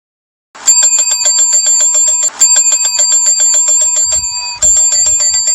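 A bell ringing in a fast, continuous trill of rapid strikes, loud and metallic. It comes in three long runs with brief breaks about two and four and a half seconds in.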